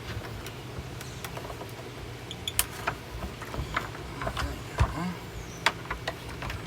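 Scattered clicks and knocks from a plastic Hoover vacuum cleaner being pushed on and handled while someone tries to break it apart, over a steady low hum.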